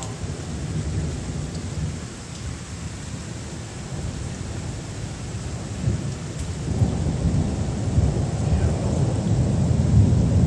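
Thunder rumbling over steady rain. A long roll of thunder builds about six seconds in and swells louder toward the end.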